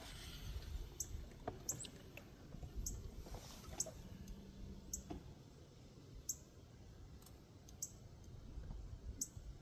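Faint, irregular sharp clicks, about one or two a second, over a low rumble.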